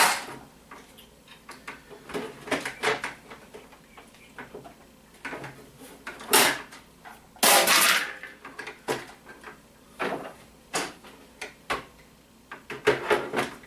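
Irregular clicks, knocks and rattles of a printer's plastic housing being handled and pried at: a sharp click at the start, a loud knock about six seconds in, a longer rattle a second later and a quick run of clicks near the end.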